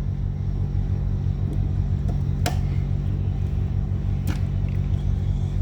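Steady low rumble and hum in the background, with two sharp clicks about two and a half seconds in and again past four seconds, as a wire is fitted into a terminal of a WAGO 750 series coupler.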